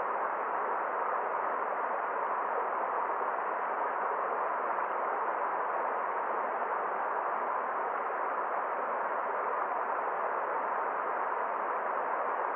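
Forest stream, water flowing steadily with an even, unbroken sound.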